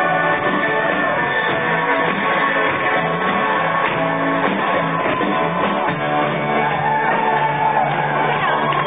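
Loud music playing steadily, with shouting voices over it.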